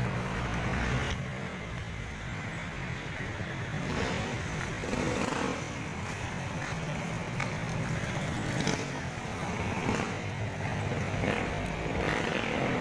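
Street traffic: the steady hum of motorcycle and car engines running along the road, mixed with general city street noise.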